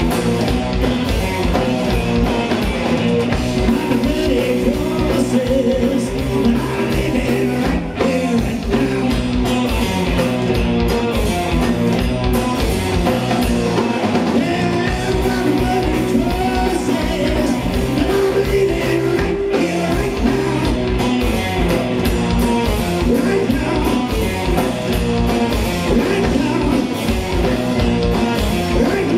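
A rock band playing live on electric guitars and a drum kit, with a steady beat.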